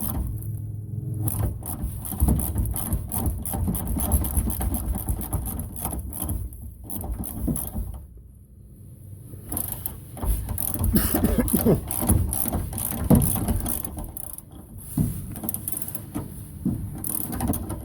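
Hand tools working bolts on truck sheet metal: irregular clicking of a ratchet wrench mixed with knocks and rubbing of metal parts, with a short lull about halfway through.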